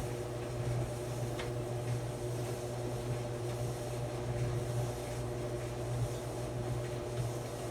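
Maytag clothes dryer running: a steady low hum with a few faint, steady higher tones over it, unchanging throughout.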